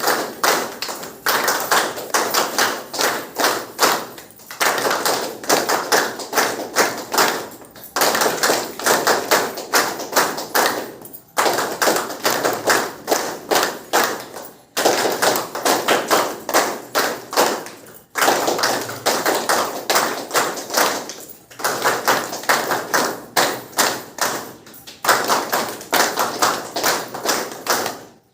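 A small group clapping rapidly, with individual claps heard as a dense run of sharp taps. It comes in stretches of about three and a half seconds, each broken by a brief lull, and repeats with a very even rhythm.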